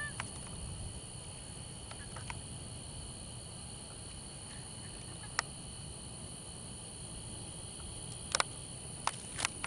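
An insect chorus, likely crickets, trilling steadily at several high pitches, with a few sharp clicks about halfway through and again near the end.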